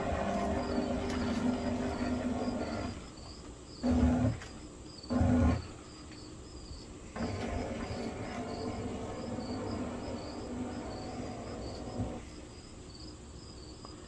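Homemade robot platform's electric wheel motors humming as its hard wheels rumble over wooden deck boards, in starts and stops: a run of about three seconds, two short bursts near four and five seconds, then a longer run that stops about twelve seconds in. Insects chirp steadily in the background, a few high chirps a second.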